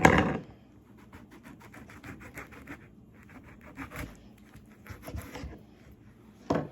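Knife cutting a lemon in half: a sharp knock at the start, a run of quick rasping strokes about two seconds in, and another knock near the end.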